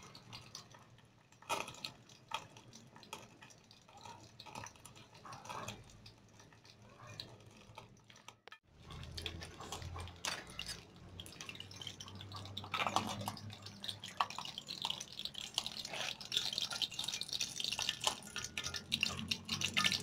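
Martabak frying in hot oil in an aluminium wok, crackling and sizzling, with a metal spatula clicking against the pan. After a brief break just before halfway, the sizzle becomes denser and louder.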